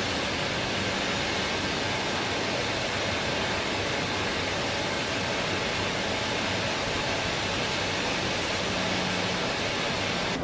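Steady, even rushing noise with no rhythm or clear pitch.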